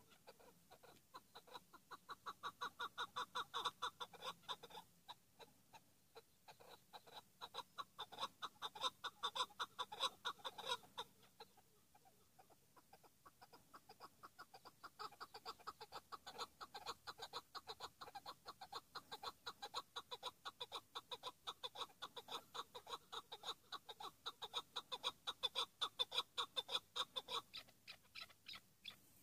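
Chukar partridge calling in long runs of rapid, evenly repeated clucking notes, in three bouts with short pauses between them.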